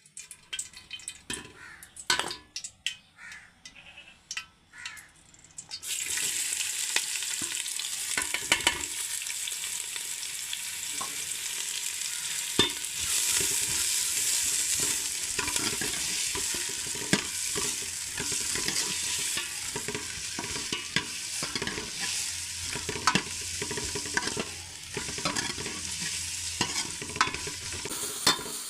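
Food frying in a pan for a macaroni dish: a few separate knocks and clinks of a utensil at first, then about six seconds in a steady sizzle starts suddenly, with a spoon or spatula clicking and scraping against the pan as it is stirred.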